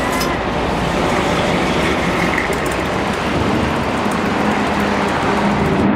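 Steady street traffic noise: a continuous wash of passing cars and engines.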